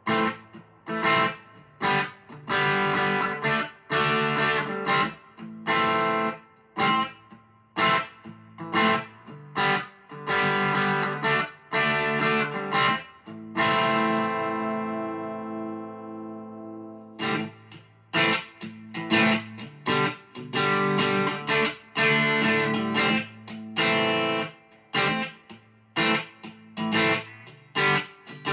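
Electric guitar with big single-coil pickups played through a Vox AC10 amp: short, choppy strummed chords with brief gaps between them, and one chord left to ring out and fade for a few seconds about halfway through.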